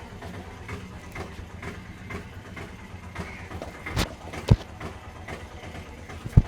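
A masseur's hands striking during a head massage: three sharp smacks, two close together a little past the middle and one near the end, the second and third much the loudest. Under them runs a steady low rumble.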